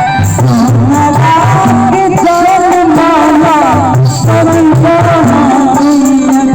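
Loud Indian folk-style song with a wavering, ornamented vocal or lead melody over a steady drum beat.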